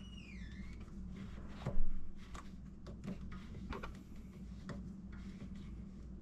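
Tightening a drain pipe connection on a garbage disposal under a kitchen sink: scattered clicks and rubbing of parts being handled, a short squeak at the start and one louder knock about two seconds in.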